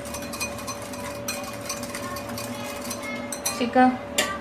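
A whisk beating yogurt and mayonnaise in a bowl, clicking against the bowl's side about two or three times a second; it stops and a woman's voice is heard near the end.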